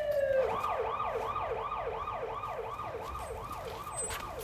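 Emergency-vehicle siren: a falling wail that switches about half a second in to a fast yelp, rising and falling about three times a second, slowly fading away.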